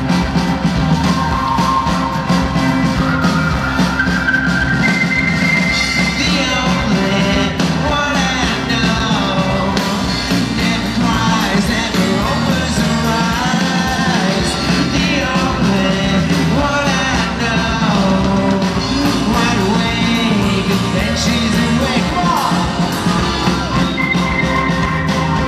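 Live rock band playing loud through a festival PA, heard from the audience: a man singing over electric guitar, keyboard and drums.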